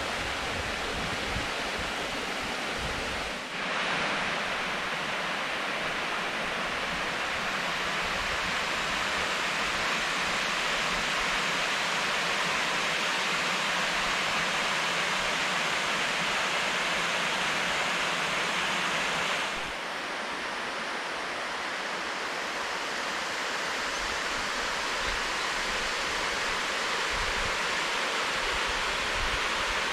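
River water pouring over a stepped weir in a steady, even rush. The level shifts slightly twice.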